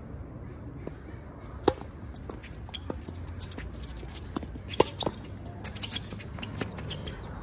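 Tennis rackets striking the ball during a doubles rally: a few sharp pops, the loudest about one and a half seconds in and about five seconds in, with fainter ticks between.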